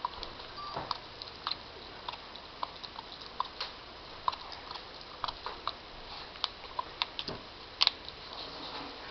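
A dog chewing on a straw: crisp, irregular clicks and crunches, about two or three a second, with a sharp double click near the end.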